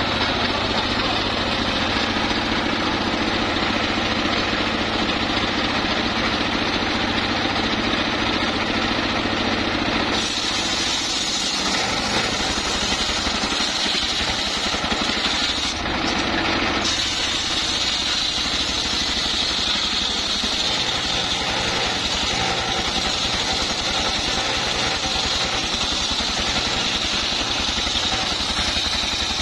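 Homemade circular-saw sawmill driven by a single-cylinder diesel engine, the engine running steadily throughout. From about ten seconds in the big blade bites into a log, adding a harsh, hissing whine of sawing that carries on to the end.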